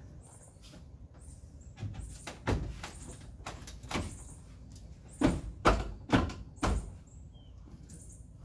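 Wooden knocks and thuds as tongue-and-groove pine ceiling boards are pushed and knocked by hand into place against the van roof. A scattered string of about seven knocks, the loudest a quick run of four over about a second and a half past the middle.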